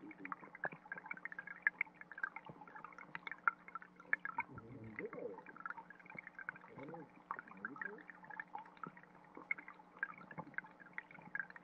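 Underwater ambience of a shallow rocky stream, recorded underwater: trickling water gives a constant irregular patter of small pops, ticks and bubbling, with a few low gurgles, over a faint steady low hum.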